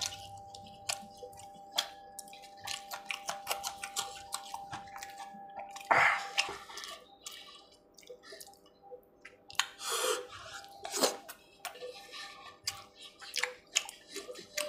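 Close-up wet chewing and lip smacking while eating spiced chicken liver by hand, a dense run of sharp wet clicks, with louder smacking sounds about six seconds in and again around ten to eleven seconds in.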